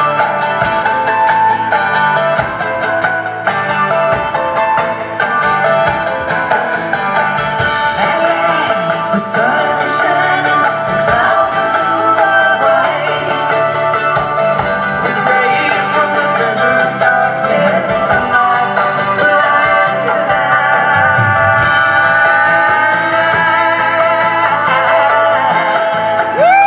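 Live rock band playing a folk-rock song: strummed mandolin and acoustic guitar with women singing, amplified over a concert PA and picked up by a phone in the audience.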